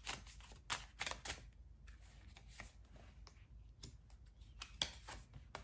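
Faint clicks and soft taps of tarot cards being handled and laid down on a table. The clicks come thickly in the first second or so, then only now and then.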